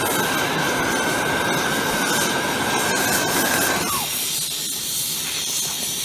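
Oxyhydrogen water-electrolysis torch flame hissing steadily with a thin high whistle while brazing a copper coil; about four seconds in the whistle slides down and dies away and the hiss drops to a quieter level.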